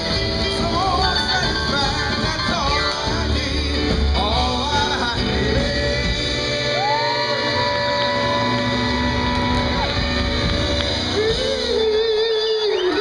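Doo-wop vocal group singing in harmony over a live rock-and-roll band, with a long held chord in the middle. Near the end the band drops out under a final held vocal note as the song closes.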